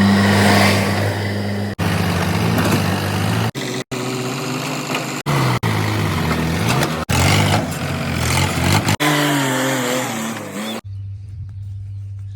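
Diesel machinery engines running and revving, in a string of short clips that cut off abruptly one after another, the pitch rising and falling with throttle. Near the end this gives way to a quieter, steady low engine hum.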